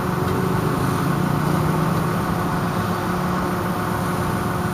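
A car engine running with a steady low hum over an even rush of background noise.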